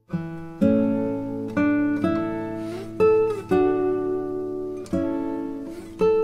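Solo acoustic guitar music: plucked notes and chords, each ringing out and fading, about one or two a second, with a couple of sliding notes.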